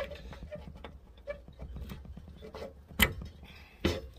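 Light scraping and clicking of hand tools and small metal parts being worked on a carburettor, with two sharp knocks, one about three seconds in and one just before the end.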